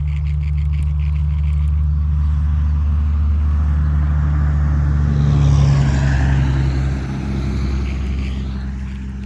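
A steady, low engine hum, with the rush of a passing vehicle swelling and fading about halfway through.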